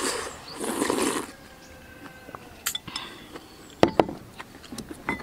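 Soup slurped from a bowl, then the bowl set down on a wooden table with two sharp clinks about four seconds in.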